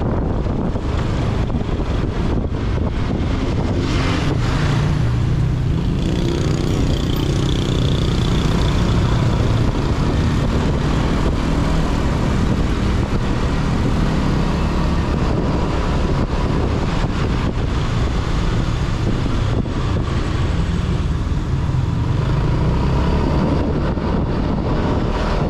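Motor scooter on the move: wind rushing over the action camera's microphone, with the scooter's engine and tyre noise running steadily underneath.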